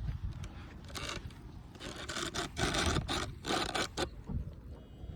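Irregular scraping and rubbing noises in a series of short bursts.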